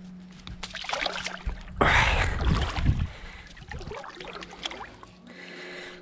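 Water splashing as a large flathead catfish, held by its lower jaw, is lowered into lake water. There is one loud splash about two seconds in, lasting about a second, then softer sloshing and dripping.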